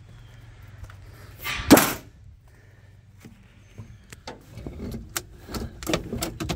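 Handling noises in a Jeep J10's cab, with the engine not running: one loud thump about two seconds in, then a run of irregular clicks and knocks near the end as the accelerator pedal is pumped by hand.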